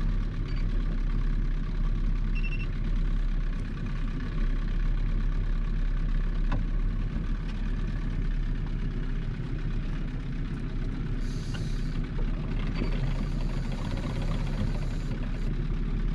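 Fishing boat's outboard motor running steadily at low trolling speed, a constant low hum. A hiss comes in over it for a few seconds past the middle.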